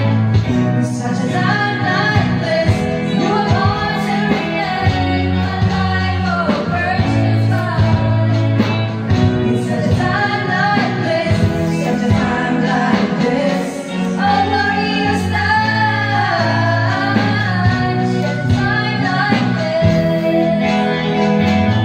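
Two female voices singing a gospel song together through microphones, over a steady instrumental accompaniment.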